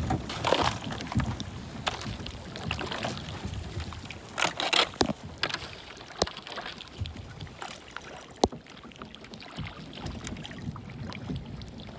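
Kayak paddling through brash sea ice: the paddle blades splash and drip, and scattered sharp clicks and knocks of ice come through, the loudest a single click after about eight seconds.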